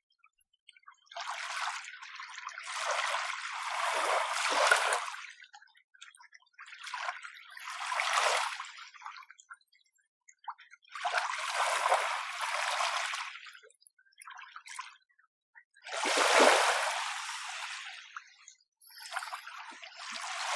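Gentle small sea waves washing onto the shore in about five separate surges, each lasting a few seconds and fading out, with short near-silent gaps between them.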